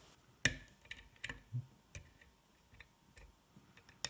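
Hook pick working the pins of a DOM S lock cylinder under tension: a handful of short, sharp metallic clicks at irregular intervals as pin stacks and spool pins are lifted and set.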